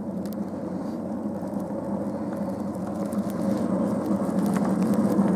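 Miniature railway train running along the track: a steady rumble of the wheels on the rails with a few faint clicks, growing louder as it approaches.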